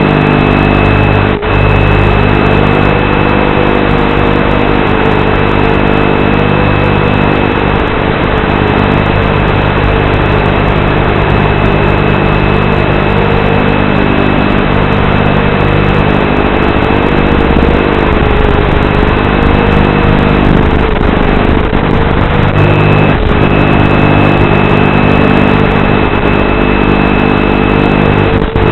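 ZMR-250 FPV quadcopter's motors and propellers running steadily, their pitch wavering slightly with throttle, heard through the onboard camera's microphone with a loud hiss, a steady high whine and a low buzzing hum. The audio briefly drops out once about a second and a half in.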